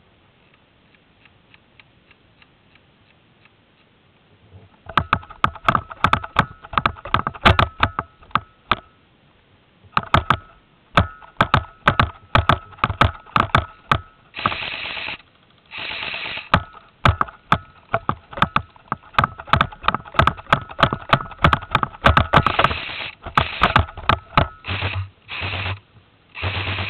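Airsoft guns firing: a dense, irregular run of sharp clicking shots, single shots mixed with rapid strings, starting about five seconds in, with a steady mechanical whine under the shots.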